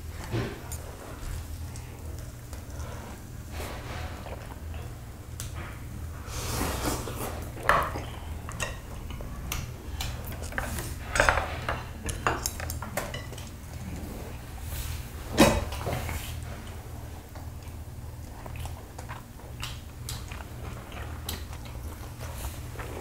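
Chopsticks and tableware clinking and tapping against plates and bowls during a meal, with scattered light clicks and a few louder clinks. A steady low hum runs underneath.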